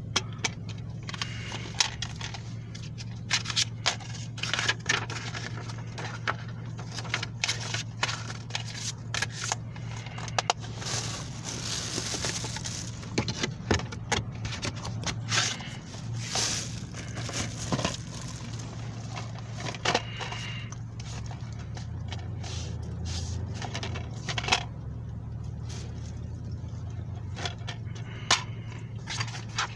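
Plastic DVD cases being handled: irregular clicks, snaps and scrapes as a disc is pressed off the centre hub and cases are opened, shut and shuffled. A steady low hum runs underneath.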